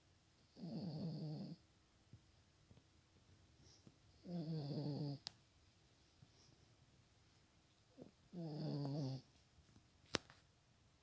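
Dog snoring: three rattling snores about four seconds apart, each lasting about a second. A sharp click sounds near the end, briefly the loudest thing.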